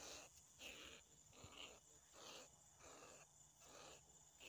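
Faint rhythmic rattling from a hand-shaken rat-calling device, used to lure field rats at night. It comes in short, even strokes, about three every two seconds.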